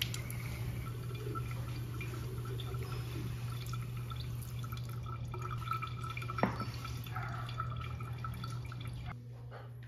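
Water dripping and running into a stainless steel kitchen sink as a freshly watered potted plant drains, over a low steady hum. The pot is set down on the counter with a single knock about six and a half seconds in.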